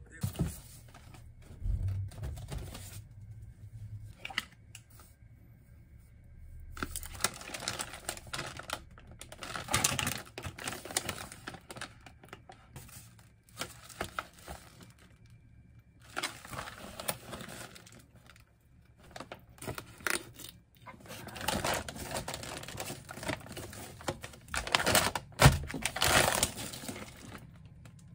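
Plastic food packaging crinkling and rustling as groceries are handled and unpacked from a styrofoam delivery box, in several stretches of a few seconds with short pauses between.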